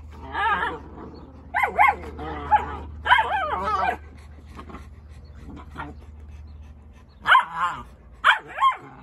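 Puppies yipping and whining: a run of short, high-pitched, wavering cries in the first four seconds, then two more near the end.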